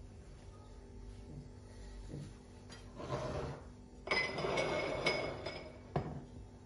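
Kitchenware being handled: a saucepan set down on a counter among plates and glass bowls, with clinks and knocks. A short rustle about three seconds in, then about two seconds of louder clatter with a few sharp knocks, the last one near the end.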